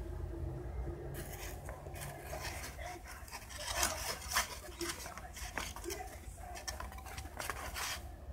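Cardboard box scratched and knocked under a cat's paws: a busy run of quick scrapes and taps that starts about a second in.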